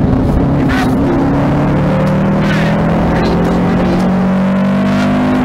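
Rally car's engine heard from inside the cockpit, pulling hard under acceleration, its pitch climbing steadily through the middle, with a few short sharp noises along the way.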